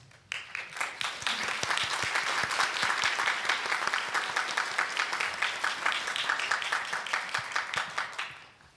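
Audience applauding: many hands clapping at once, starting just after the start and dying away near the end.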